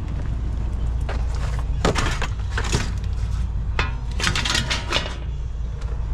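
Scrap metal clattering and knocking in several quick clusters as it is handled and loaded, over a steady low hum of the van's idling engine.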